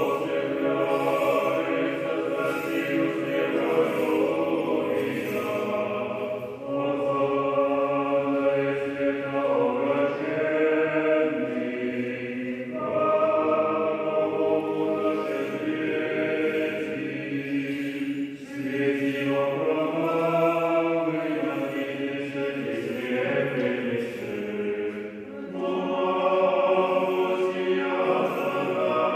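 An unaccompanied Orthodox church choir chanting a liturgical hymn in phrases of about six seconds, each ending in a brief pause before the next.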